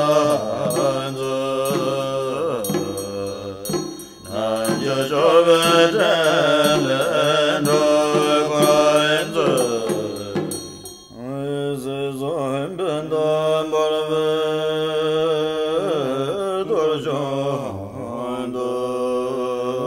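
A Buddhist mantra chanted in a long, melodic voice over a steady low drone, with short pauses between phrases about 4 and 11 seconds in.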